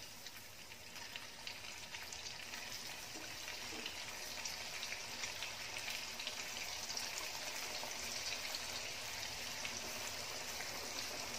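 Gujiya deep-frying in hot oil in a kadhai: a steady crackling sizzle of bubbling oil that slowly grows louder as more pastries are dropped in.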